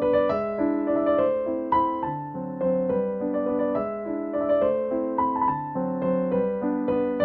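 Soft piano background music, a gentle melody of struck notes over a chord accompaniment.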